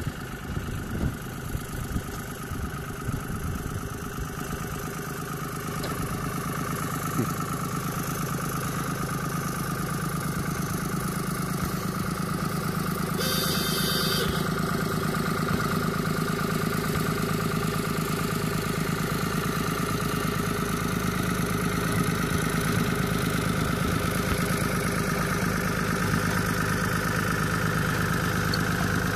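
Small Lister narrow-gauge diesel locomotive's engine running steadily as it hauls a rake of peat wagons, getting gradually louder as it draws nearer.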